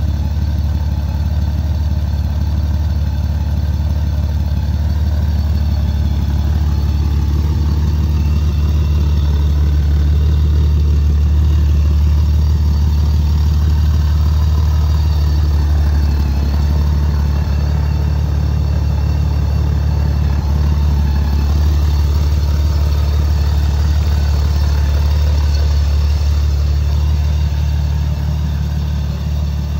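Honda Valkyrie GL1800C's flat-six engine idling steadily through a short exhaust.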